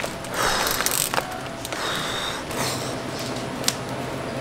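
Crinkling and rustling of a large plastic dog food bag being handled, in several short bursts, with a sharp click a little before the end.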